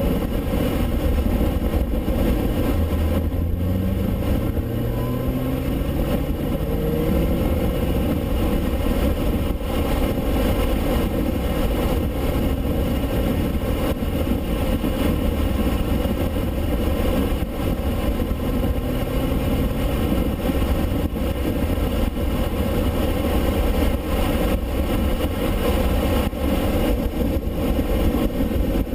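Performance car engine accelerating hard on a track, its pitch climbing through the gears several times in the first few seconds, then running at steady high revs under a continuous rush of noise.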